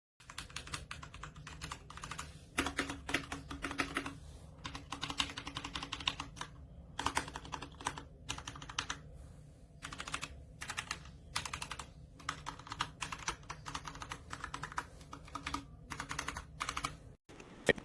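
Typing on a Royal Kludge RK61 60% mechanical keyboard: quick runs of key clicks with short pauses between them.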